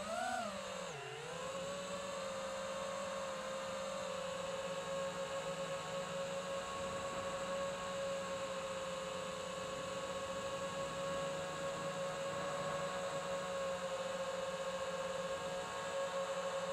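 FPV quadcopter's motors and propellers giving a steady whine. The pitch swoops up and back down about a second in, then holds level.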